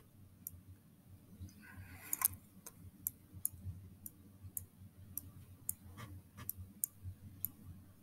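Computer mouse button clicking, a run of short sharp clicks about two a second, each press and release drawing a pen stroke in a paint program.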